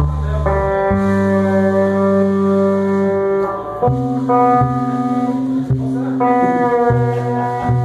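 Electric guitar solo from a cream Telecaster-style guitar over a live rock band: long held notes of a second or more, over a bass line that changes note every second or so.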